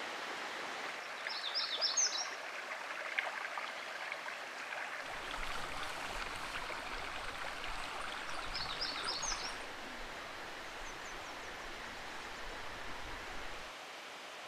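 Small stream's water flowing steadily, with a songbird singing a short, quick phrase of high notes twice, about a second and a half in and again about nine seconds in. A low rumble joins the water about five seconds in and stops shortly before the end.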